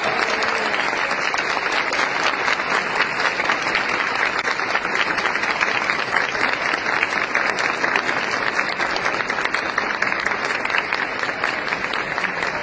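A crowd applauding, many hands clapping steadily throughout.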